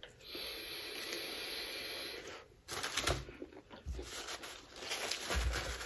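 Table noises of people eating: a steady rustling hiss for about two seconds, then scattered clicks and low knocks.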